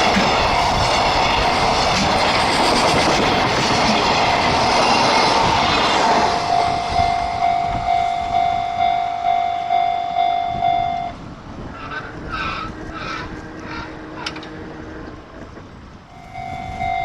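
A freight train running past the level crossing at speed: a loud, steady rush of wheel and rail noise that fades out about six seconds in. The crossing's warning bell is then heard ringing on its own at about two strokes a second and stops about eleven seconds in. It starts ringing again near the end, the signal of another train approaching.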